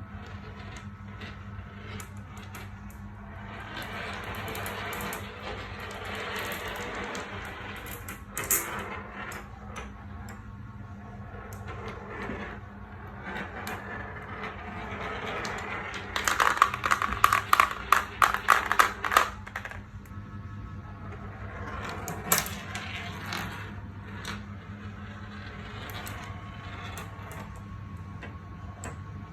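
Marbles rolling along plastic marble-run tracks, with single sharp clicks and a fast rattling run of clicks for a few seconds past the middle, the loudest part, as marbles clatter down the track, over a steady low hum.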